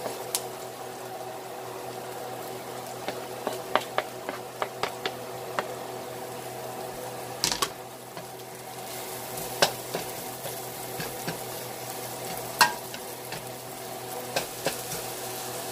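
Onions, garlic and julienned ginger frying in olive oil in a stainless steel pan, sizzling steadily while a wooden spoon stirs them, with irregular knocks and scrapes of the spoon against the pan. A steady low hum runs underneath.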